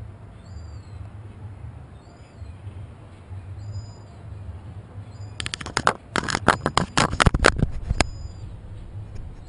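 A GoPro camera's housing knocking and clattering as a gull holds it in its beak: a quick run of sharp clicks and knocks starting about halfway through and lasting some two and a half seconds, over a steady low rumble.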